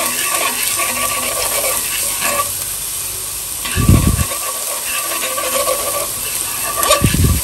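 Minced garlic sizzling in hot oil in a nonstick pan while wooden chopsticks stir and scrape it around. Two short low thumps, about four seconds in and near the end.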